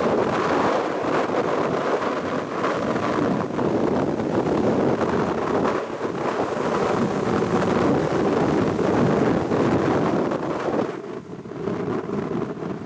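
Jet engine noise from a landing Boeing 767-300 airliner, a steady broad rush mixed with wind buffeting the microphone. The noise dips briefly about eleven seconds in, and a steady hum comes in near the end.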